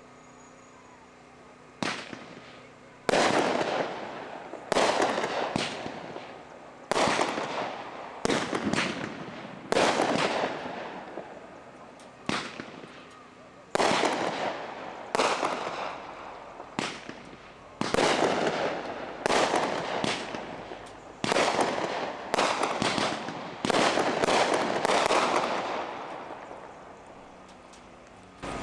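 A multi-shot consumer aerial firework cake firing: a long run of loud bangs, some singly and some in quick pairs and triplets, each trailing off over a second or so. It starts about two seconds in and stops a couple of seconds before the end.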